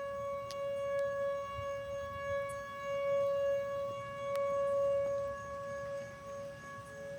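Outdoor tornado warning siren sounding a steady alert tone, its level slowly swelling and fading. Near the end a second, lower-pitched siren tone joins in.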